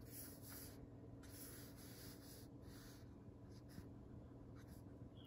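Faint pen strokes scratching on paper, in short soft patches.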